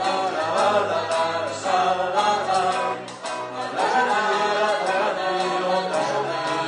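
A vocal trio, one woman and two men, singing in harmony into microphones, amplified over a recorded backing track with a steady beat.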